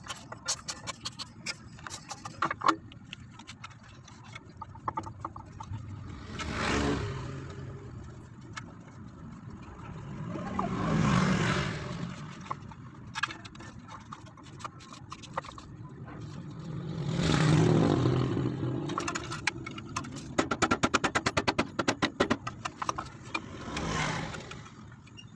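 Sharp clicks and scrapes of hand tools on a scooter's CVT belt cover, scattered at first and in a fast run near the end. Over them, four times, a passing vehicle's engine noise swells and fades.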